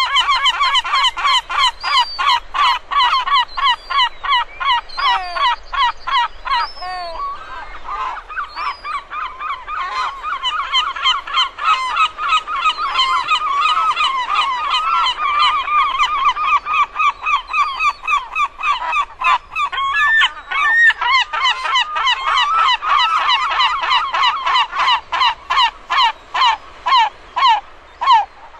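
A flock of seagulls calling continuously: many rapid, overlapping calls, thinning to more spaced single calls near the end.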